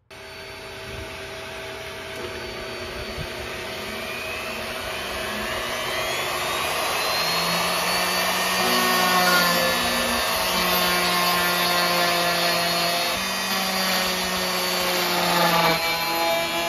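Triton TRJ001 plunge router running on its add-on SCR speed controller and cutting into a wooden board. It is a steady motor whine whose tones shift in pitch as the bit takes load. The sound grows louder over the first several seconds.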